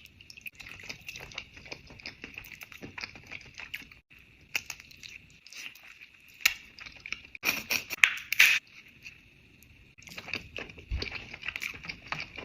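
Close-miked eating sounds from a seafood boil: dense crackling, cracking and wet smacking of shells and sauce. A few louder cracks come in the middle, and the sound changes abruptly twice.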